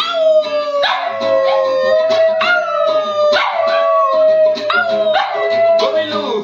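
Small dog howling along to music in several long, drawn-out notes, each sliding slightly down in pitch, over a man singing and strumming an acoustic guitar.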